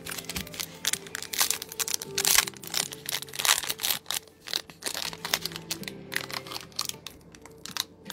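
Crinkling and crackling of a foil Pokémon booster pack and cards being handled, a rapid run of many short crackles. Soft background music plays under it.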